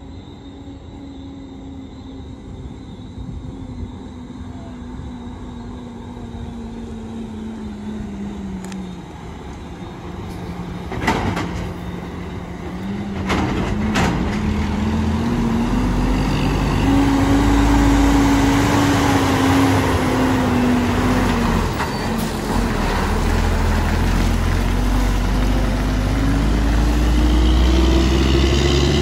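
Truck's Cummins N14 diesel engine pulling a load of sand: its revs fall over the first several seconds, then climb, dip briefly, and climb again, growing louder. A few sharp knocks sound in the middle.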